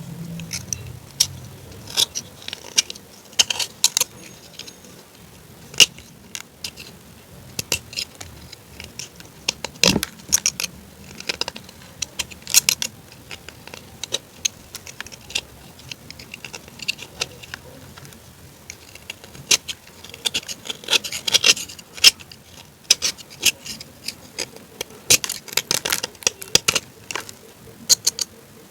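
Crunchy food being bitten and chewed: irregular sharp crackles and crunches, coming in busy clusters with short gaps between.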